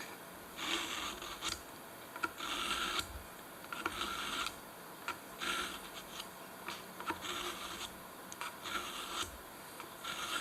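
Penknife blade being drawn through a Smith combo pocket sharpener, repeated rasping strokes about every second and a half with small clicks between them.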